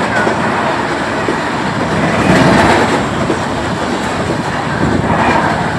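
Train running at speed, its wheels clattering on the rails in a steady rush of noise that swells louder about two seconds in.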